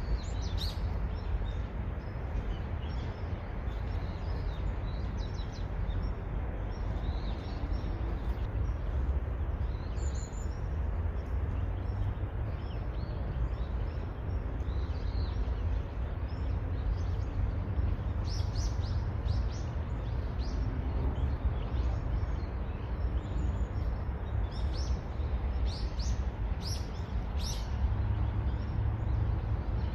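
Small birds chirping in short, high calls over a steady low rumble of background noise. The chirps are scattered at first and come thicker in the last third.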